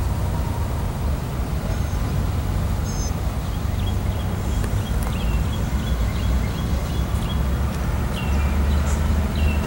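Steady low rumble of an idling diesel locomotive engine, with short bird chirps scattered through the second half.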